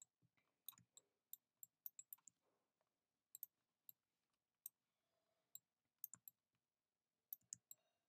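Faint, scattered clicks of a computer mouse and keyboard being worked, about twenty in all, irregularly spaced and some in quick runs of two or three.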